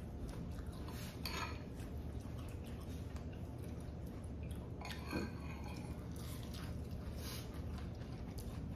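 Faint clinks and knocks of dishes and cutlery during a meal, a few scattered strikes over a steady low hum.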